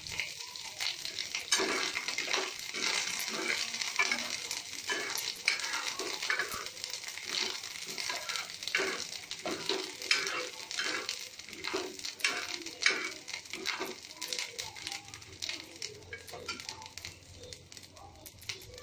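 Ginger paste and spices crackling and sizzling in ghee in a steel pan, with the gas turned off, fading toward the end as the pan cools.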